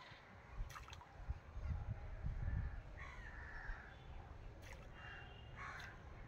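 Crows cawing several times, with a low rumble that is loudest about two seconds in.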